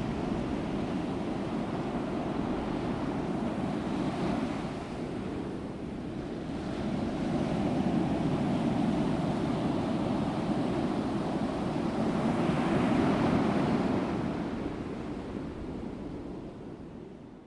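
Steady rushing noise of ocean surf, swelling and easing, fading out near the end.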